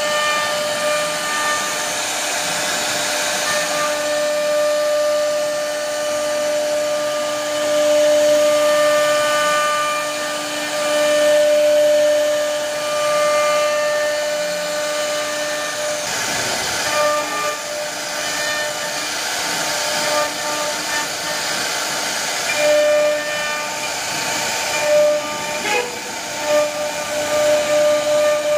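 CNC router spindle cutting a relief carving into a wooden door-frame board: a steady whine with hissing cutting noise as the bit works through the wood. About halfway through, the whine's lowest tone drops out and the sound becomes uneven, with a few sharp ticks near the end.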